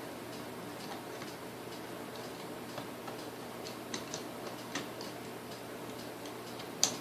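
Scattered light clicks and ticks of small tools and metal parts being handled while a vintage Sunbeam Mixmaster mixer is taken apart, a few in the second half and one sharper click near the end, over a steady low background hum.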